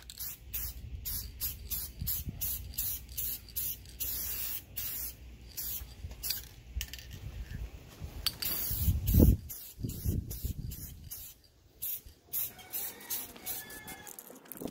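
Aerosol spray-paint can hissing in short repeated bursts, a couple a second at first and longer sprays later, as black paint goes on over primed steel. About nine seconds in there is a loud low rumble.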